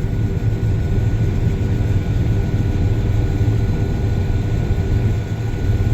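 John Deere combine harvester running under load while harvesting wheat, heard from inside the cab: a steady low engine and threshing drone with a thin, constant high whine over it.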